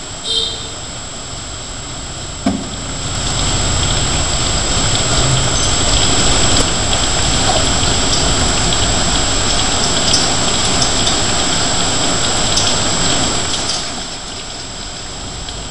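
Steady rain falling on a paved street, swelling louder for about ten seconds in the middle, with two short knocks in the first few seconds.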